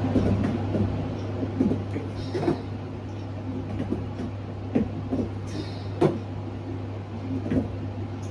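A handful of short, soft clicks and knocks, about six spread across several seconds, over a steady low hum.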